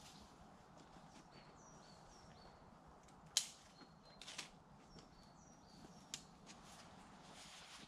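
Conifer branches being worked by hand into a shelter. There is a single sharp snap about three and a half seconds in, then softer snaps and rustles a second later and near the end. A small bird gives short high calls again and again in the background.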